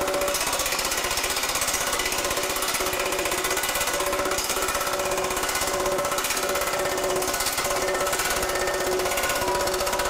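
TM Technologies pneumatic power hammer with a shrinking die hammering a 1/8-inch 3003 aluminum sheet to shrink it, a fast, unbroken stream of blows at a steady level, with a few steady ringing tones over it.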